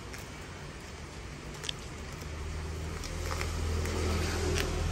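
A low hum swells over the last few seconds. Over it come a few faint clicks and crinkles as a cutter slits the plastic wrap on a coil of speaker cable.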